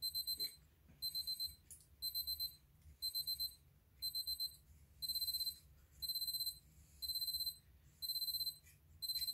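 Heat press timer beeping: a high electronic beep in quick groups of four, about one group a second, the beeps in each group coming faster from about halfway. It signals that the press time is up.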